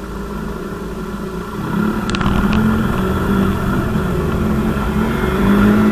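A motor engine running steadily, growing louder about two seconds in, with two short clicks.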